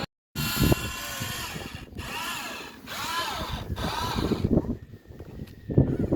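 Small electric motors of a remote-controlled toy construction vehicle whining, rising and falling in pitch several times in quick succession, then giving way to a rougher grinding noise near the end.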